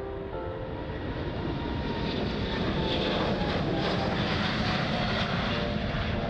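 Jet airliner on its takeoff run passing close by: engine noise swelling to its loudest about three to five seconds in, with a whine that falls in pitch as it goes past.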